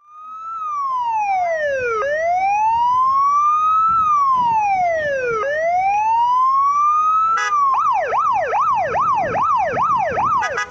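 Electronic siren sounding a slow wail, rising and falling about every three and a half seconds, then switching to a fast yelp of about three sweeps a second near the end, with a click at the changeover.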